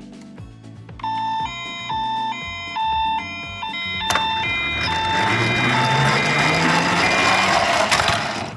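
A toy ambulance's electronic two-tone 'pii-poo' siren, with buzzy high and low notes alternating a little over twice a second. A click about four seconds in is followed by a rushing noise with a low whine rising in pitch, while the siren notes fade.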